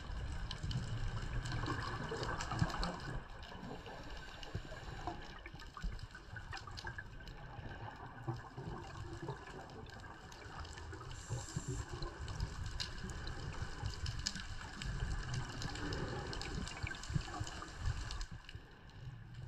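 Muffled underwater sound heard through a camera housing: irregular gurgling and bubbling of scuba divers' exhaled air, with a low rumble of water movement and scattered small clicks.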